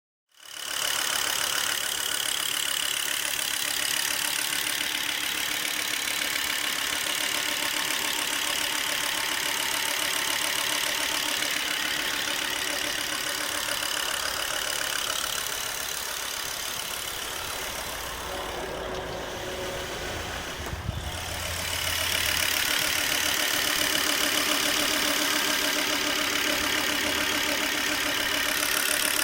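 Volvo V70 2.5T's turbocharged five-cylinder engine running steadily, mostly at idle. Between about 18 and 21 seconds in, the sound shifts, with more low rumble, and it runs a little louder from about 22 seconds on.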